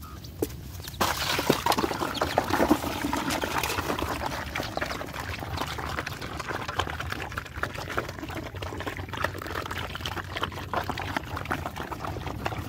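A pack of dogs and puppies eating together from a metal bowl: dense wet lapping, slurping and chewing that starts suddenly about a second in and keeps up.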